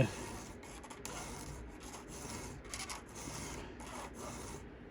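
Hand file rasping across the cutters of a chainsaw chain during sharpening, in short repeated strokes about two a second, stopping near the end.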